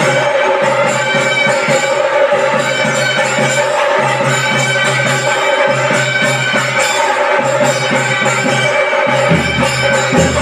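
Music with held tones and a pulsing bass line; the bass shifts lower about nine seconds in.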